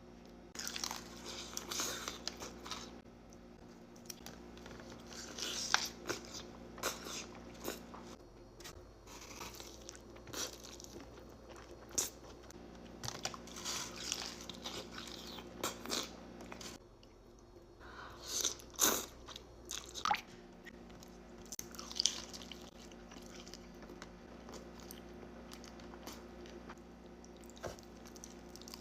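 Close-miked eating of crisp birria tacos: crunchy bites and chewing, with sharp crunches coming at irregular intervals, the loudest around six, twelve, nineteen and twenty-two seconds in.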